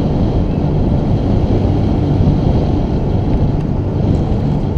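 Wind buffeting the microphone of a camera on a road bike descending at speed: a loud, steady, low rumble.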